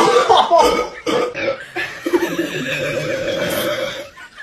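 A person burping after gulping Sprite: one long, drawn-out burp that starts about a second in and lasts about three seconds.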